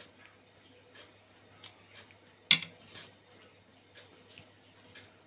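A single sharp clink of crockery about two and a half seconds in, with a smaller tap before it and a few faint taps as hands roll a filled roti on a stack of plates.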